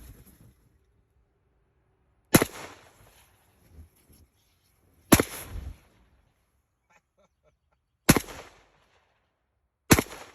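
Four single gunshots a few seconds apart, each dying away quickly.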